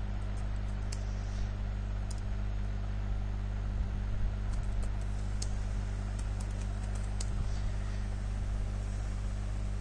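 Typing on a computer keyboard: scattered keystrokes at an uneven pace, over a steady low electrical hum.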